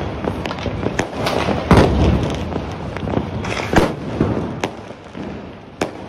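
Firecrackers going off: a run of sharp bangs at irregular intervals, the loudest about two seconds in, over continuous crackling that fades toward the end.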